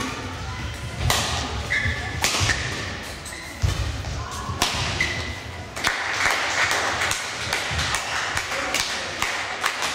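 Badminton rally in a hall: sharp racket strikes on the shuttlecock every second or so, sneakers squeaking on the court floor, and footfalls thudding as the players move.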